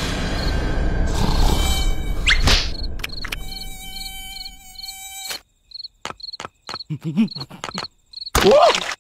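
Cartoon mosquito buzzing with a high insect chirp repeating about two to three times a second. A low rumble fills the first few seconds, and a few sharp clicks and short gliding squeaks come near the end.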